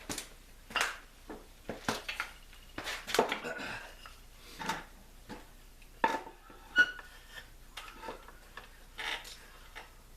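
Tools and wooden pieces being handled on a workbench: a dozen or so irregular knocks and clatters of things picked up and set down, one with a brief metallic ring about seven seconds in.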